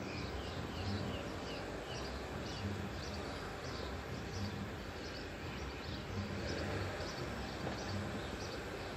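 Outdoor ambience: small birds chirping, many short calls a few times a second, over a steady low rumble.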